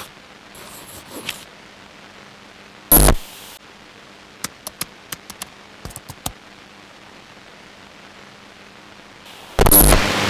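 Title-card sound effects over a steady static hiss. A short loud burst of static comes about three seconds in, then a run of about ten quick keyboard-typing clicks, and another loud burst of static near the end.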